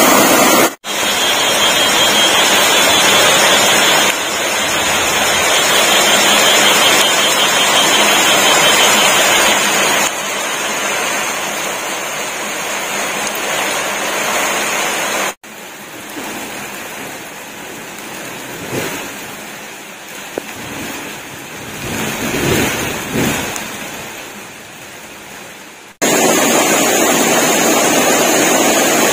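Water rushing and splashing down a small rocky cascade, a steady noise with sudden cuts between shots. For about ten seconds in the middle it is quieter.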